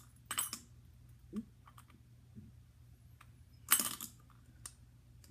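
Small metal handbell and fidget spinner handled and set down on a hard floor: a few light clicks and ticks, with one sharper clack about three and a half seconds in.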